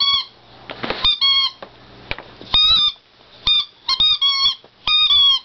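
A dog's toy pig squeaking as he bites and chews it: short, high squeaks that come in quick bursts of one to four, about a dozen in all.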